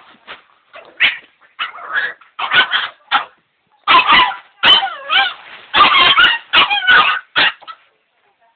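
A dog vocalizing in a rapid run of short yips and whiny barks, the pitch bending up and down, stopping shortly before the end.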